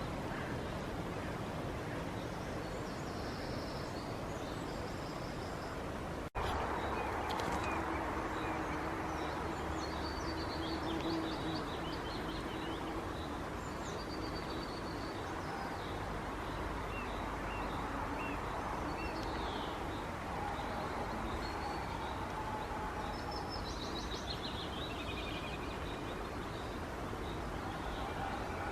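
Woodland birds singing and calling, short high chirps and trills from several birds, over a steady background rush. About six seconds in the sound breaks off for an instant and comes back slightly louder.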